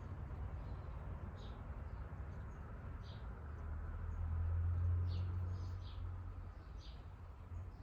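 Scattered faint bird chirps over a low steady rumble that swells for a couple of seconds in the middle.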